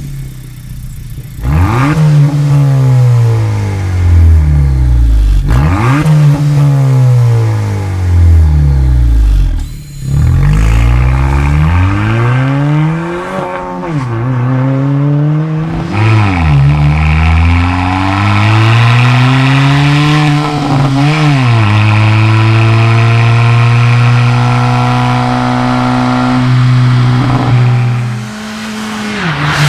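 Honda 1.5-litre turbo four-cylinder breathing through a Borla S-Type cat-back exhaust, revved sharply several times in quick succession, then brought up and held at a steady higher speed for several seconds before dropping back near the end.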